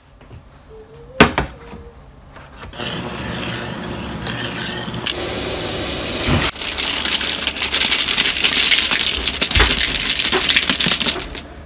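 Udon noodles and ice cubes being stirred and rubbed around in a stainless-steel mesh strainer: a steady scraping, rubbing noise that grows louder about five seconds in. A sharp knock comes a little over a second in.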